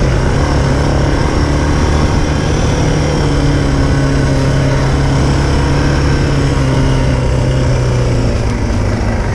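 Suzuki DR650's single-cylinder four-stroke engine running steadily under way on a dirt track, easing off slightly near the end.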